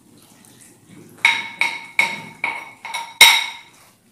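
A metal kadai knocked repeatedly while its contents are stirred: about seven quick, ringing knocks starting about a second in, the loudest near the end.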